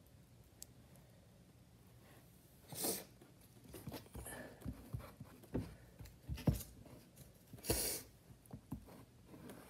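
Hands pressing and smoothing wet plaster cloth onto model railroad scenery: faint soft dabs, taps and rustles, with two short hissing bursts about three and eight seconds in.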